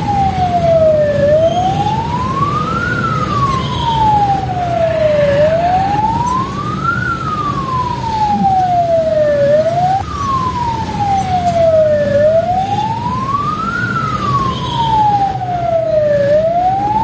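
Ambulance siren in a slow wail, its pitch rising and falling about once every four seconds, over a steady low rumble. The sweep breaks off and restarts about ten seconds in.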